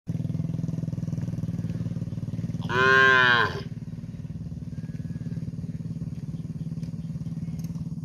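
A calf gives one loud, high-pitched moo of about a second, a little under three seconds in, its pitch rising and then falling: a calf calling for its absent mother. A steady low hum runs underneath.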